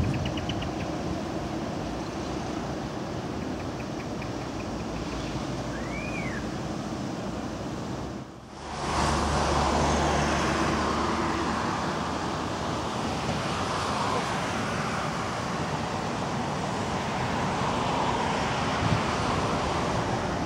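Trams running slowly around a street-side turning loop, mixed with road traffic noise. The sound breaks off briefly about eight seconds in and comes back louder, with a low hum for a couple of seconds.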